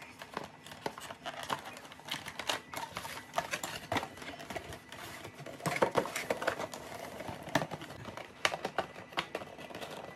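Cardboard packaging and a bicycle shifter being handled: a run of irregular light clicks, taps and rustles, with a few louder knocks scattered through.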